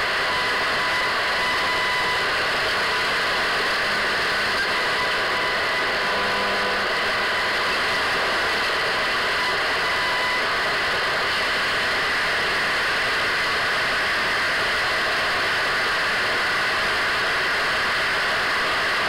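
Radio static: a steady hiss, with a faint high whistle through the first half.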